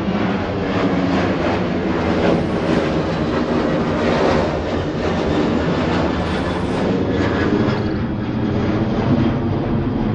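Boeing 737 jet engines at takeoff-climb power as the airliner climbs out overhead: loud, steady jet noise with faint steady tones running through it.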